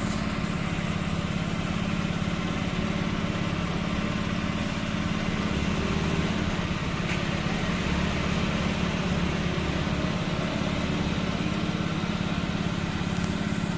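Honda Vario 125 scooter's single-cylinder engine running at a steady idle, the scooter being in for a strange noise from its CVT (belt drive).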